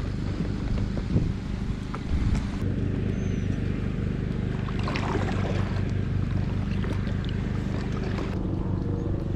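A small motor humming steadily at a constant pitch, with a brief higher-pitched sound about five seconds in.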